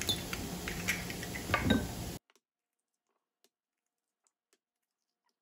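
Eggs cracked against the rim of a glass measuring cup: a few sharp taps and cracks, then the sound cuts out to silence about two seconds in.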